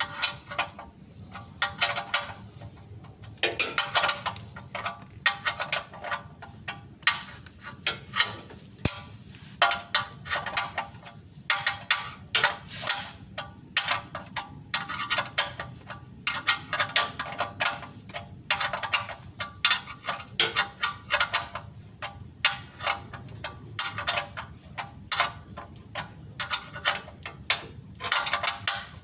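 Ratchet wrench with a 17 mm socket being worked back and forth on a bolt, its pawl clicking in short irregular bursts of quick clicks.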